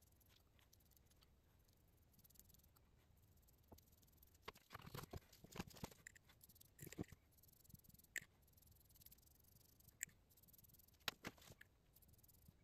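Near silence broken by a few faint, scattered taps and clicks of small benchtop handling: a paintbrush dabbing cold bluing solution onto small mild-steel plates and small plastic solution bottles being opened and set down.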